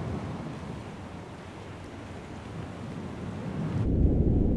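Open-sea water ambience, a soft steady wash around a small floating raft. About four seconds in the sound turns abruptly muffled and deep: the highs vanish and a louder low underwater rumble takes over.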